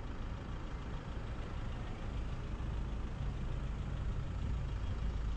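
Car engine running, a steady low rumble.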